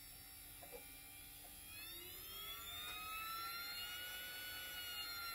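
Arjo patient-lift 24 V DC motor with its gear-reduction transmission, running on a bench power supply. Its whine rises in pitch about two seconds in as the supply voltage is turned up toward 24 V, then holds steady. The transmission sounds perfect, with no clunking from the gears.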